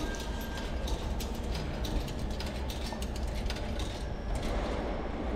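Steady low hum of a metro station ticket hall with scattered clicks and light mechanical clatter.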